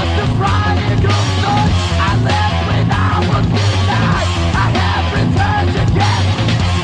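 Loud, dense punk/metal rock music from a full band, with a yelled vocal over it.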